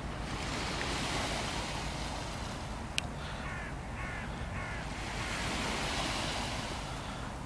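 Steady rush of wind and surf at the shore, swelling and easing. About three seconds in there is a sharp click, then a bird calls three times in quick succession.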